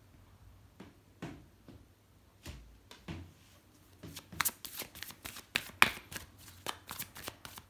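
A deck of tarot cards being shuffled by hand: a few scattered card clicks at first, then rapid card clicks from about halfway through.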